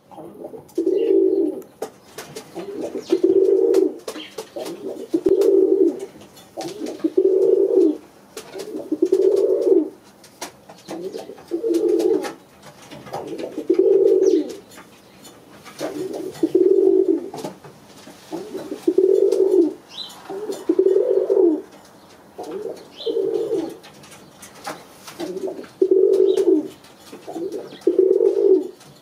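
Pouter pigeon cock cooing over and over in a bow-coo display: deep, rolling coos about a second long, one roughly every two seconds.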